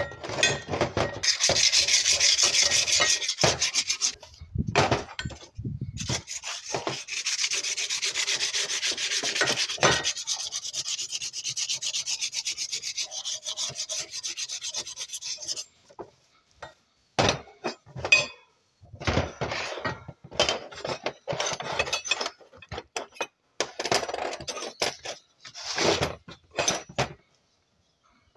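Sandpaper scrubbing rust off a steel bicycle bar in rapid back-and-forth strokes. The sanding stops about halfway through, and scattered short scrapes and knocks follow.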